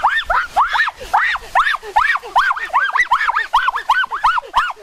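A child yelping over and over, high cries each rising then falling in pitch, about three or four a second.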